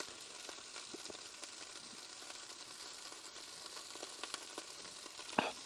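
Faint sizzling and crackling of minced beef wrapped in tin foil cooking on the heat, with scattered small ticks and one sharper click near the end.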